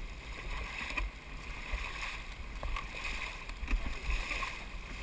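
Dragon boat paddles dipping and splashing in the water with the crew's strokes, about once a second, over a low rumble of wind buffeting the microphone.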